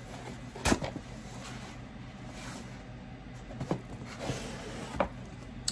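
Cardboard mailer box being handled and opened: a sharp knock of the box about a second in, then a few lighter clicks and scrapes of cardboard as the lid flap is pulled up.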